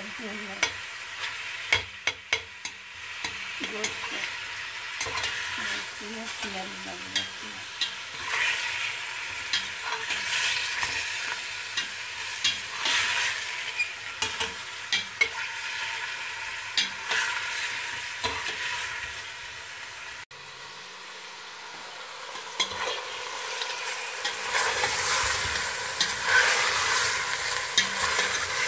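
Chicken pieces sizzling as they fry in a stainless steel pot, stirred with a metal spoon that clicks and scrapes against the pot many times.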